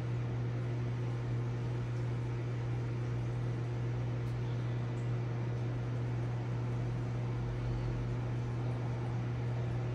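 Steady low electric hum of a reef aquarium's water pump, with a constant hiss behind it and no change throughout.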